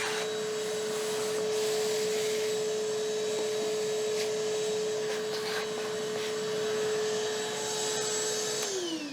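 Small electric motor running at a steady high pitch with an airy hiss, then switched off and winding down near the end, its pitch falling.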